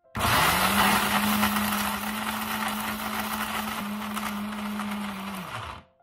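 Electric kitchen mixer grinder running with a jar of dried herbs, roots, green gram and rose petals, grinding them into powder. The motor spins up sharply at the start, runs steadily with a dense hiss of the dry load churning in the jar, and winds down about five and a half seconds in as it is switched off.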